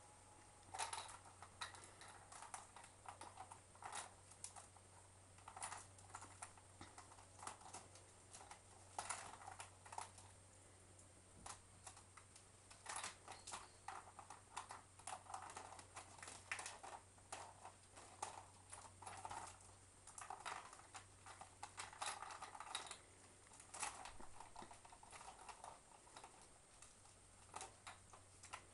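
Small wicker basket creaking and rustling, with toys knocking about inside it, as a kitten rummages through it: irregular light clicks and rattles in clusters, over a faint steady hum.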